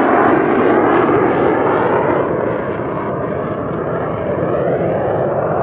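Single Rolls-Royce Viper turbojet of a BAC Strikemaster jet trainer flying a display pass: a loud jet roar that eases slightly about two seconds in, with a whine gliding up in pitch in the second half.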